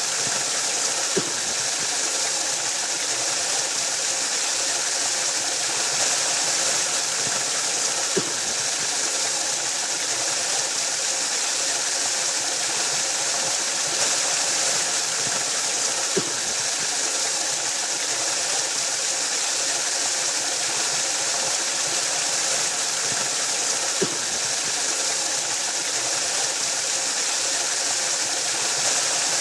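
Waterfall rushing steadily, an even hiss of falling water, with a faint click about every eight seconds.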